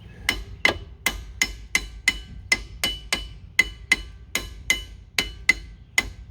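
Hammer tapping a rear brake caliper to seat it over new brake pads: a steady run of light strikes, about three a second, each with a short metallic ring.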